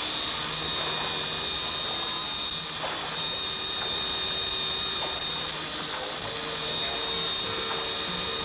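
Cartoon sound effect of an engine running: a steady high-pitched whine over a rushing noise, held at one pitch after revving up.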